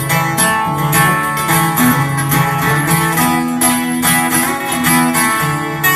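Live acoustic guitar strumming an instrumental passage between verses of a country-folk song, with held notes underneath.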